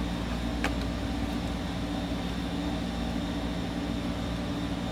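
Steady low background hum with a faint constant high tone, and a single faint click about half a second in.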